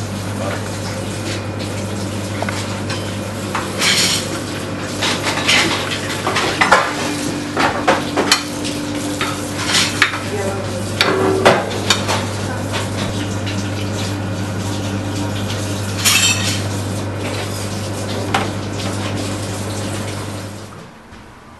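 Beef onglet sizzling as it sears in a very hot pan, over a steady low hum, with scattered clanks of the pan and metal utensils. The sound drops away shortly before the end.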